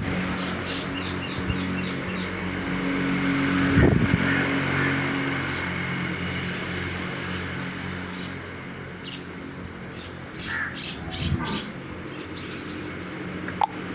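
Small birds chirping in quick repeated series over a steady low mechanical hum, with a sharp knock about four seconds in and another near the end.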